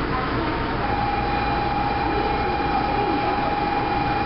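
Osaka New Tram automated guideway train standing at a station, with a steady background hum. A single steady tone comes in about a second in and holds.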